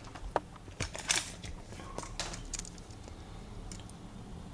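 Handling noise: a scatter of light clicks and taps, with a short rustle about a second in, mostly in the first two and a half seconds, over a low steady hum.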